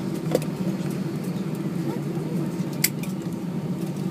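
Steady cabin noise of an Airbus A319 rolling out on the runway after touchdown: a low hum with two held tones from the engines and the wheels on the runway. Two sharp clicks come through, about a third of a second in and near three seconds in.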